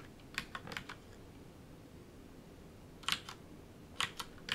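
Keystrokes on a computer keyboard: a quick few presses about half a second in, a couple of single presses around three and four seconds in, then fast typing starting right at the end.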